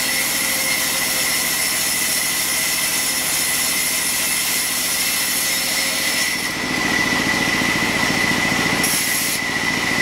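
Sawmill band saw running and cutting through a log, a steady machine noise with a high, even whine. About six seconds in the sound becomes fuller and lower.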